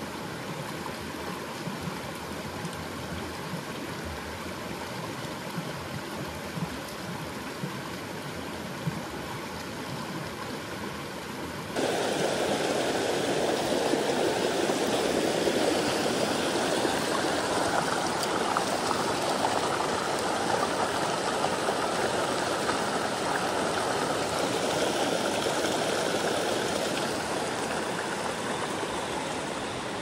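Mountain stream running over rocks, a steady rush of water; about twelve seconds in it jumps abruptly to a louder, fuller rush of a small cascade close by.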